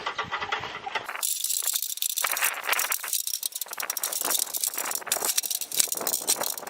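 Tree branches and leaves rustling and crackling as they are pulled and shaken, a dense rapid crackle that starts about a second in.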